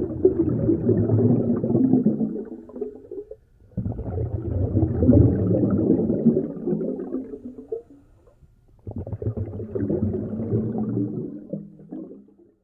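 Muffled low underwater rumble and water movement, picked up by an underwater camera. It comes in three swells, each cutting in suddenly and fading away.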